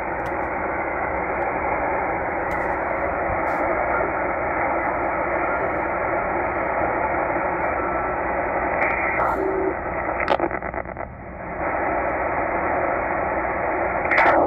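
Tecsun H-501x shortwave receiver hissing with band noise in upper sideband as it is tuned up through the 14.6–14.7 MHz utility band. Short tones from passing signals come in about two-thirds of the way through and a brief burst near the end, with faint clicks from the tuning knob.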